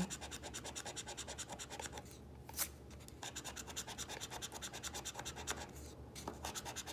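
A metal scratcher tool scraping the coating off a paper scratch-off lottery ticket in quick, even strokes, about ten a second, with short pauses about two seconds in and near the end. A single sharp click sounds about two and a half seconds in.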